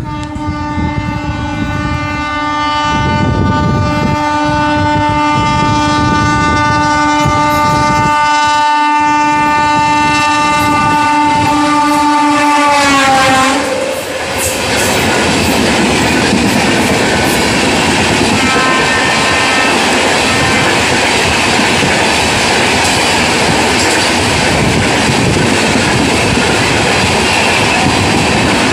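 WAP7i electric locomotive's horn sounding one long many-toned blast that drops in pitch and cuts off about halfway through as the locomotive passes. Then the LHB coaches rush past at speed with clickety-clack of wheels over rail joints.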